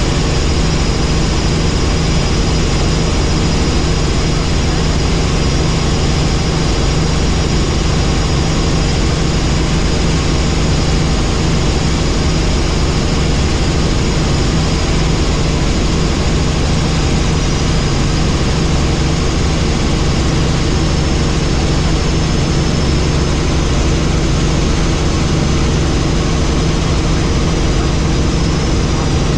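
Helicopter in flight: loud, steady engine and rotor noise with several fixed tones in it, unchanging throughout.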